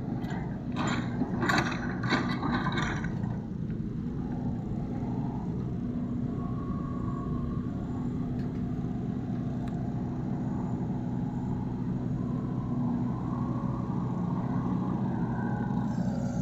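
Excavator engine running steadily, with a cluster of short scraping, clanking strokes in the first three seconds.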